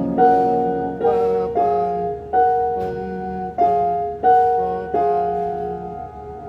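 Piano chords played one after another, about seven struck in turn and each left to ring and fade: a slurred worship chord movement in F-sharp with a melody on top.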